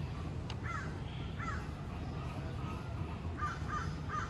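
Short, repeated animal calls: two in the first second and a half, then a quick run of three about three and a half seconds in. A steady low rumble runs underneath.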